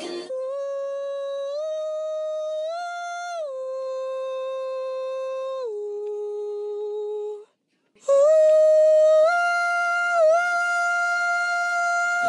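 A single voice humming long, held high notes without words, stepping up and down in pitch. It comes in two phrases with a short break about halfway, and the second phrase is louder, with a quick dip in pitch partway through.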